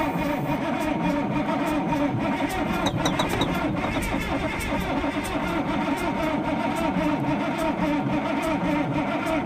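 Starter cranking the Freightliner FLD120's diesel engine over steadily, without it catching, while air is still being bled from the fuel lines to the injectors.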